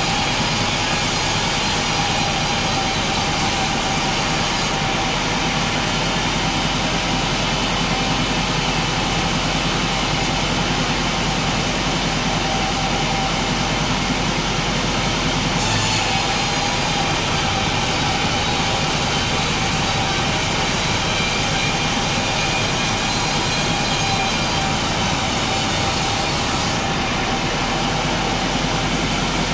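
Sawmill machinery running steadily as a large pine log is sawn: a continuous mechanical drone with a steady whine and an even level throughout.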